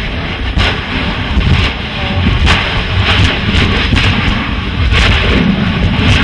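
Wind buffeting the microphone over the running engine of a tour boat at sea: a loud, steady rumble, with a few short cracks about half a second, two and a half and five seconds in.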